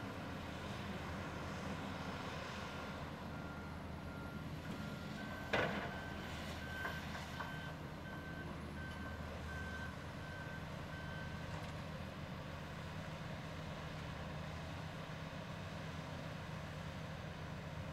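The heavy diesel engine of a Caterpillar 336E hydraulic excavator runs steadily while it works, with one sharp bang about five and a half seconds in. A vehicle's backup alarm beeps steadily from a few seconds in until about two-thirds of the way through, and again briefly near the end.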